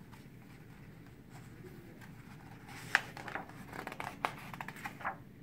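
Pages of a hardcover picture book being turned by hand: soft paper rustling with a few sharp ticks, the loudest about three seconds in.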